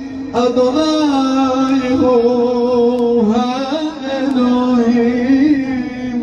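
Long, held blast on a large spiralled kudu-horn shofar, one steady note with a slight waver that dips briefly about three seconds in.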